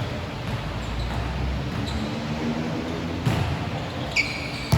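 Basketball game sounds: a ball thudding on the court twice and a short sneaker squeak near the end, over a steady background hubbub.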